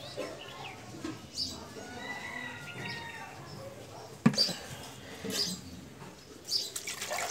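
Wash water dribbling off soaked poha as a steel bowl is tilted to drain it. About four seconds in the bowl knocks down onto the stone floor, and near the end water starts to pour into it from another vessel. Small birds chirp faintly in the background.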